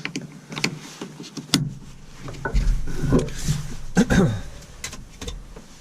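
A series of sharp clicks and knocks with rubbing and creaking in between, from handling the seat belt height adjuster and its snap-on plastic trim cover in a VW Vanagon cab. The handling is busiest in the middle.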